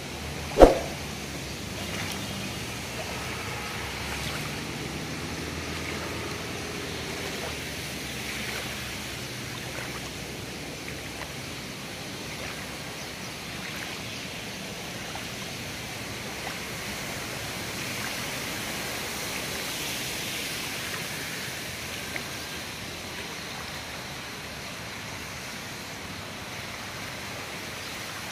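Steady rushing outdoor noise, even and unbroken, with one sharp click less than a second in.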